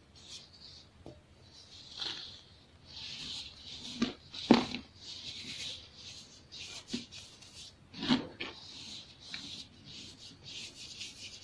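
Dried baking-soda clumps being crumbled between the fingers, with the loose powder sifting down onto a pile in a soft, crackly hiss. Sharper crunches come about four and a half seconds in (the loudest) and again about eight seconds in.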